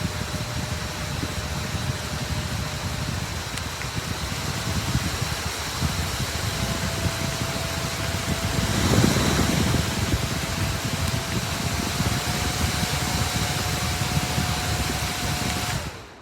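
Small battery-powered handheld fan running: a steady rush of air with a thin motor whine that rises slightly in pitch about twelve seconds in. The airflow swells louder for a moment around nine seconds in, and the sound cuts off just before the end.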